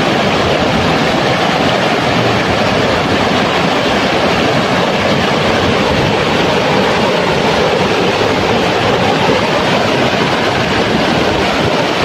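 Shallow, fast river water rushing and splashing over stones in a rocky rapid: a loud, steady rush.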